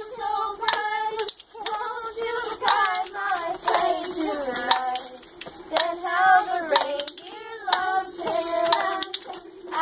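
Children singing a Christmas carol together, several young voices at once, with hand claps in time.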